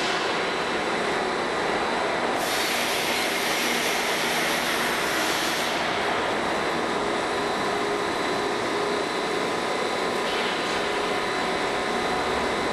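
DAIDO plate rolling machine running as its rolls turn and bend a thick steel plate: a steady mechanical grinding noise with thin whining, squealing tones. A brighter hiss comes in from about two and a half to six seconds in.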